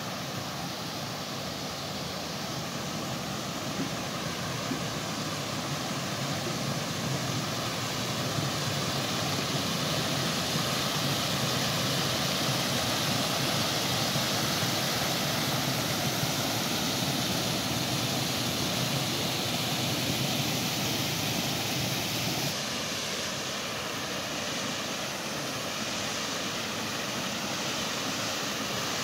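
Water pouring over a small stone weir and down a channel's steps: a steady rushing, louder in the middle stretch and dropping a little a few seconds before the end.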